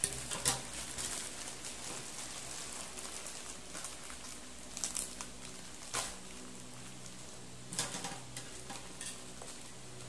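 Plastic courier mailer bag crinkling and crackling as it is handled and picked at, in irregular bursts with the sharpest crackles about half a second in, around five and six seconds in, and near eight seconds.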